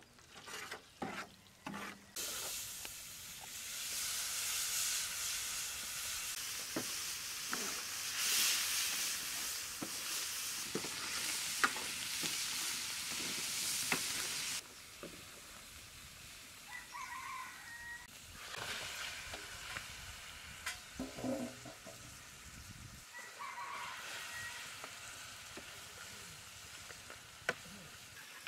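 Mutton frying in hot oil on a flat metal tray, sizzling loudly while a metal slotted spatula stirs and scrapes it, with clicks of the spatula against the pan. About halfway through, the sizzling drops to a quieter, steady frying.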